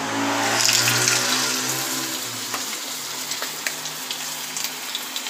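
A raw-masa quesadilla is lowered into a pan of very hot oil. The oil breaks into a sizzle that is loudest about a second in, then settles into a steady frying hiss with scattered pops and crackles.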